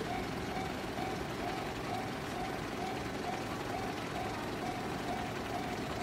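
Japanese railway level-crossing alarm ringing: an electronic bell tone repeating a little more than twice a second, over steady street and traffic noise.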